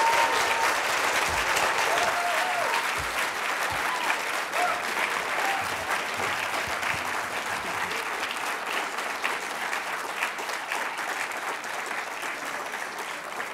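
Audience applauding, a dense patter of clapping that slowly tapers off, with a few voices over it in the first few seconds.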